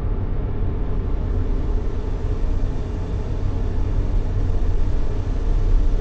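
Steady, deep sleep noise of the white-noise kind, heaviest in the bass and unchanging throughout, with no tones or separate events.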